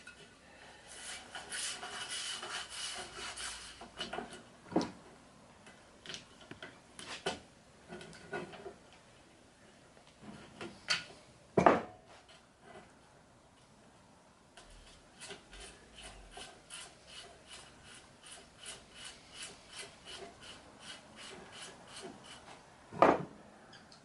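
Pile brush strip being slid along the groove of a retractable screen's top track: a rasping rub. A few sharp knocks come at intervals, and in the second half there is a run of quick, regular ticks, about two a second.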